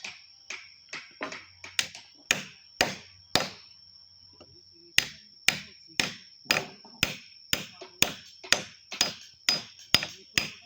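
A mallet striking a wood-carving chisel in a steady rhythm of about two blows a second, with a short pause partway through. A thin, steady high tone sits under the strikes.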